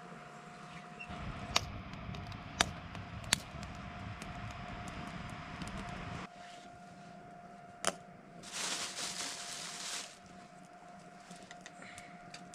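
Small wood-burning camp stove with twigs burning under a pressure cooker, the fire crackling with a few sharp snaps as sticks are handled and fed in. A hissing burst lasts about a second and a half, about two-thirds of the way through, over a faint steady hum.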